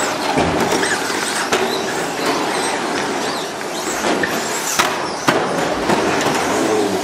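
Radio-controlled short-course trucks racing on the track: a steady rush of motors and tyres, with a few sharp knocks.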